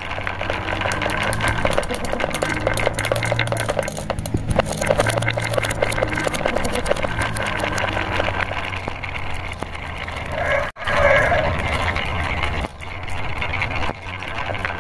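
Marbles rolling along a carved wooden rail, with rapid continuous clicking as they knock against each other and the wood over a low rolling rumble. About eleven seconds in, the sound breaks off sharply, and then there is a brief louder sound.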